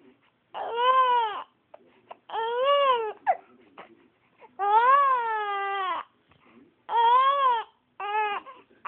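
A baby with hiccups crying in five rising-and-falling wails of about a second each, with short breaks for breath between them.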